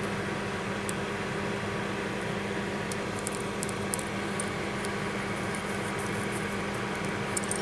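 Steady low hum and hiss, with a few faint light clicks as the small metal parts of a four-pin microphone plug are handled and fitted back together.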